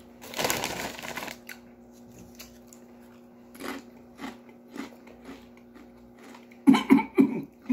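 Takis Fuego Wavy corn chips being bitten and chewed: a dense crunch about half a second in, then scattered crunches, and a cluster of louder short sounds near the end.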